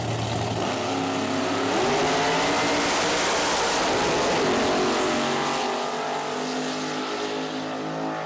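Two drag race cars launching off the line at full throttle, engines rising in pitch through gear changes, loudest a few seconds in, then fading as they pull away down the strip.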